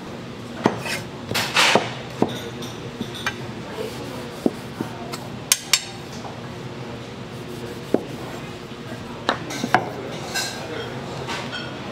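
Kitchen clatter of dishes and utensils: about a dozen irregular knocks and clinks, with a short burst of rattling clatter about one and a half seconds in.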